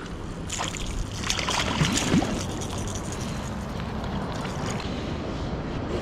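Sea water sloshing and splashing around a kayak, with wind on the microphone; a cluster of brief splashes and knocks comes between about half a second and two and a half seconds in.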